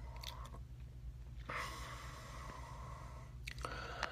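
A man breathing out in a long soft exhale, about a second and a half in, over a steady low hum, with a few faint clicks.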